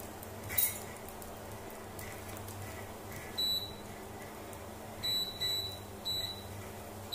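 Electronic beeps from an induction cooktop's buzzer: a single high beep about halfway through, then three more in quick succession near the end. A sharp clack about half a second in, over a steady low hum.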